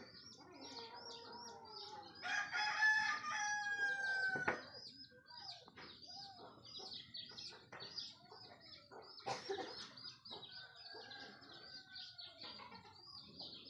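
Roosters crowing at daybreak: one loud crow about two seconds in that lasts over two seconds and cuts off sharply, and a fainter crow later on. A rapid, high-pitched chirping repeats steadily underneath.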